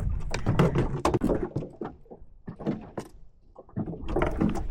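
Irregular knocks, rattles and thumps as a hooked catfish and the trotline are handled and hauled into a small fishing boat. There is a quieter stretch in the middle before the clatter picks up again near the end.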